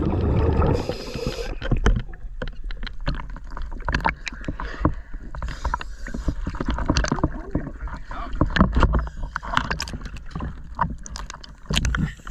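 Choppy sea water lapping and splashing around a camera bobbing at the surface, in a jumble of small, irregular splashes. Near the start comes a brief rush of water as the camera comes up from underwater.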